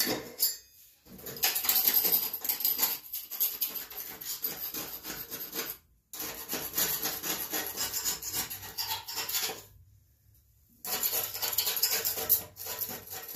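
Rust and loose paint being rubbed and scraped off a steel mower deck by hand around a spindle: quick rasping strokes with a few short pauses.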